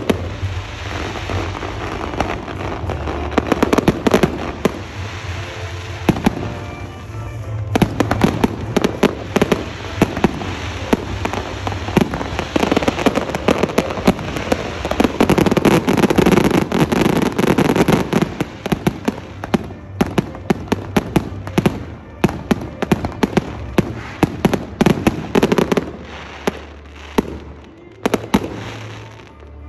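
A fireworks barrage of rapid bangs and crackling from aerial shells, densest in the middle and thinning to scattered pops near the end.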